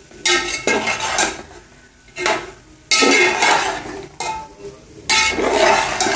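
Slotted metal spatula scraping and clanking against a large metal pot while stir-frying shredded cabbage, vegetables and chicken, in four or five separate bouts of stirring.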